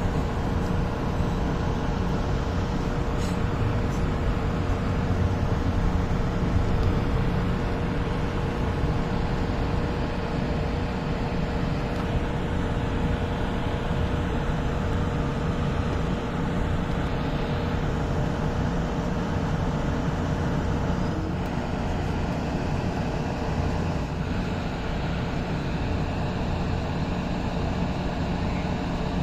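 Steady rumble and constant electric hum of a Mexico City Tren Ligero light rail car on the move.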